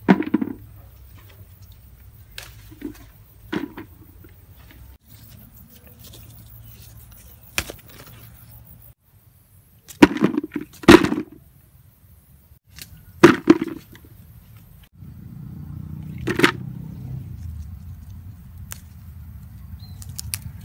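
Small Thai eggplants being snapped off the plant and dropped into a plastic bucket: scattered sharp snaps and hollow knocks, the loudest few about ten to thirteen seconds in.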